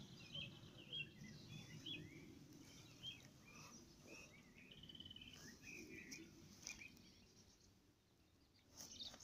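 Faint songbirds chirping and twittering in many short calls over a low steady rumble; the calls thin out about eight seconds in.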